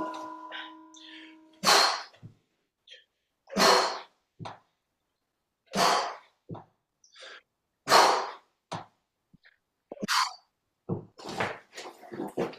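A person breathing out hard after exercise, one heavy exhalation about every two seconds, with quicker, weaker breaths near the end. A steady tone dies away in the first second and a half.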